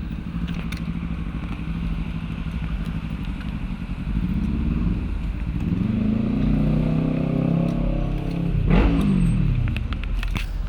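Street traffic: a vehicle's engine hum rising in pitch as it speeds up, then a car passing close about nine seconds in, its pitch dropping as it goes by.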